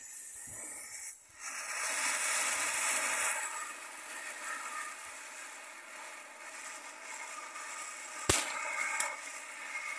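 Small firework fountain burning with a steady hissing spray of sparks. Two sharp cracks come near the end, less than a second apart.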